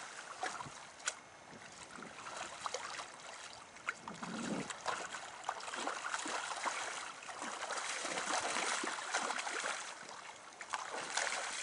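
River water running and rippling over a shallow riffle, with scattered small splashes from a hooked fish thrashing at the surface near a landing net.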